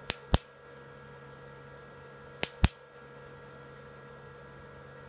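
Plastic side cutters snipping the teeth off a small plastic pinion gear on a Mini 4WD motor shaft: two pairs of sharp clicks, the second pair about two seconds after the first.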